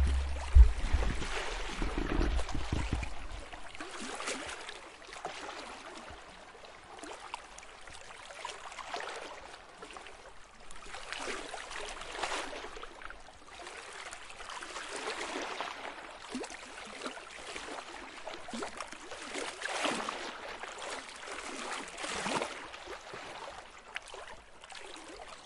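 Light lake surf: small waves washing and lapping on the shore, swelling and easing every few seconds. A low rumble runs under the first couple of seconds.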